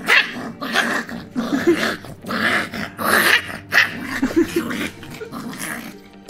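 A young puppy growling in many short bursts while it play-bites a hand. It is mock-hunting play, not real aggression.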